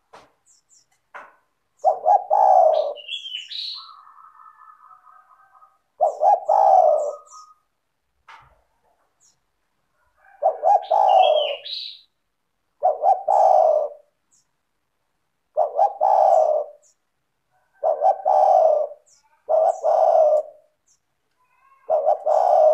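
Spotted dove (tekukur) singing its cooing song, phrase after phrase every two to four seconds. Twice a short, high, rising chirp cuts in over the coos.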